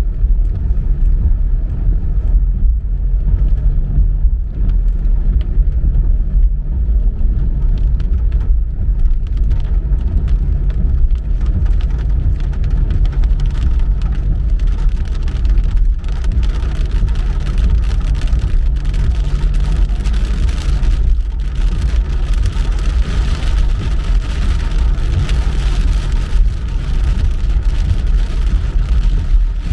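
Car driving in the rain: a steady low rumble of road and engine. From about ten seconds in, a hiss of rain and wet tyres builds up over it, with fine crackling spatter.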